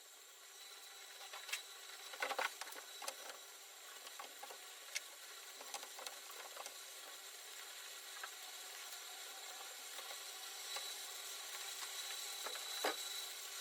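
Scattered faint clicks and light knocks, a cluster about two seconds in and a sharper one near the end, over a steady hiss with a faint high tone that grows slowly louder.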